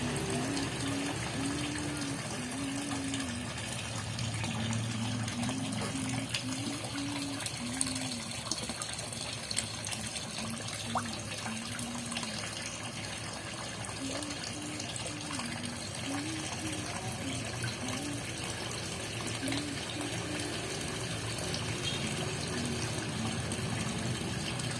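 Water running steadily into a fish pond, with a series of short, low pitched notes sounding over it.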